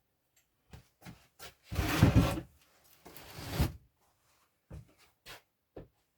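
Wooden cupboards and stored items being handled: a few light knocks, and two longer scraping sounds about two and three seconds in, the first the loudest.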